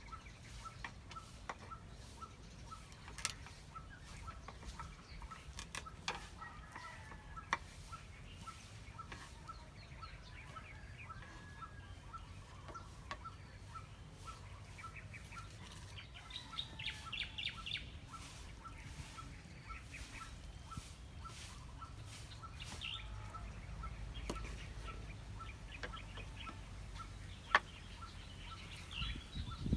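Faint outdoor ambience of birds: scattered short chirps and calls, with a steady light ticking about twice a second and a few sharp clicks.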